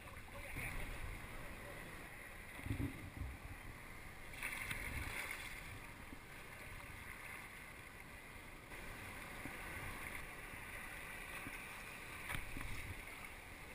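Water splashing and sloshing around a moving sea kayak, with irregular surges of splash and low rumbling gusts of wind on the microphone.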